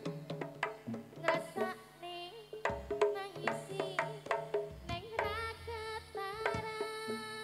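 Live East Javanese jaranan music: quick hand-drum strokes, several a second, under a held, wavering melody line.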